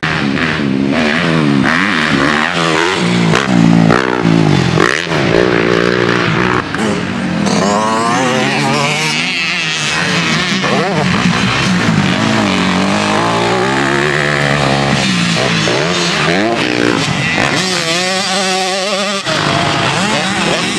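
Motocross dirt bike engines revving hard, their pitch climbing and dropping again and again with throttle and gear changes. The sound changes abruptly near the end.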